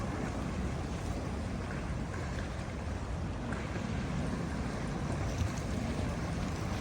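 Ocean waves washing on the shore: a steady rush of surf noise, heaviest in the low end, with no single crash standing out.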